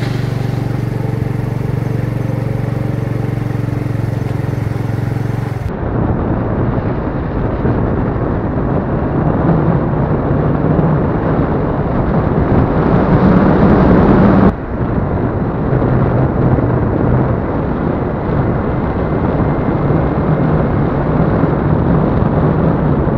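A motor vehicle driving along a road: its engine running under a heavy rushing noise, the engine pitch climbing a little and getting louder toward the middle. The sound changes abruptly about six and fourteen seconds in, where separate recordings are joined.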